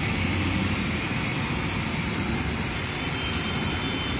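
High-pressure water jet from a pressure-washer gun hissing steadily as it blasts a foam-covered scooter. The electric 3 HP triplex plunger pump runs underneath with a steady low hum.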